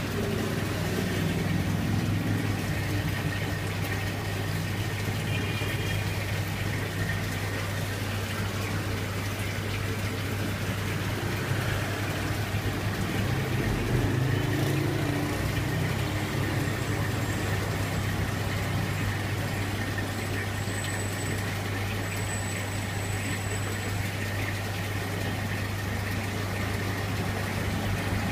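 A steady low electrical hum with water running and splashing under it, as from an aquarium tank's water pump circulating the water.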